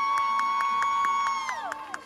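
Audience cheering: one long, high-pitched scream is held, then falls away about a second and a half in, over fast clapping.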